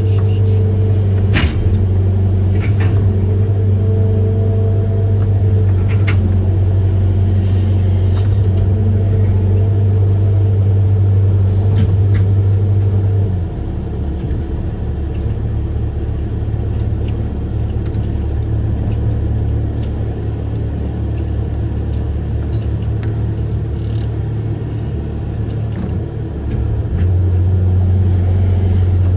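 Amphibious excavator's diesel engine running steadily with a strong low hum. The hum drops in level and turns rougher about halfway through, then comes back a couple of seconds before the end. A few sharp knocks sound in the first half.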